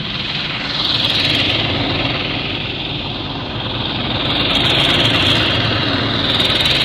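Motorcycle running at highway speed, its engine buried under a heavy rush of wind and road noise that swells about a second in and again around five seconds in.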